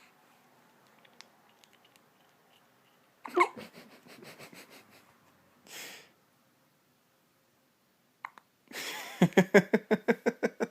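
Small, squeaky hiccups: a sharp one about three seconds in, then a breathy one. Near the end comes a quick run of short pitched sounds, about eight a second.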